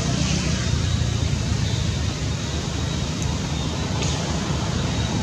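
Steady low outdoor rumble with a faint, steady high tone above it.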